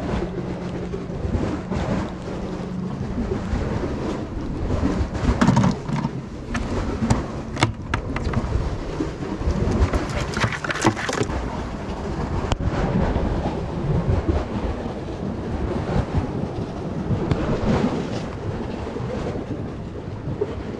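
Wind buffeting the microphone, a steady rumbling rush, with a few sharp knocks and clacks from crab tongs and a cooler as a blue crab is dropped in.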